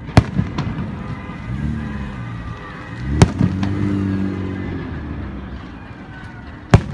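Aerial firework shells bursting: three sharp bangs a little over three seconds apart, near the start, in the middle and near the end, with a low rumble trailing after them and a few lighter pops between.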